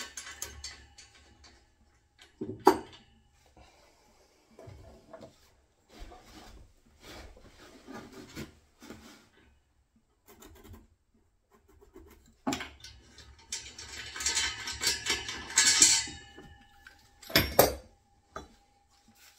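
Work noises of tools and pipework being handled on wooden floorboards: a sharp knock about two and a half seconds in, scattered rustling and tapping, a dense scraping, rasping stretch lasting a few seconds near the end, then another sharp knock.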